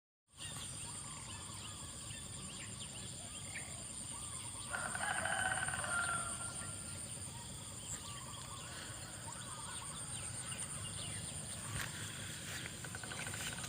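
A rooster crowing once, a call of about a second and a half a little under halfway in, over small bird chirps and a steady high-pitched buzz; a fainter call comes near the end.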